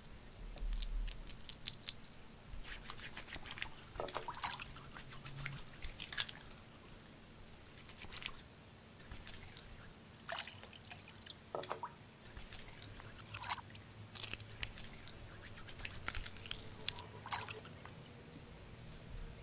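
Hands crushing and squeezing matarratón leaves in water in a metal pot: irregular splashes, drips and squelches of water.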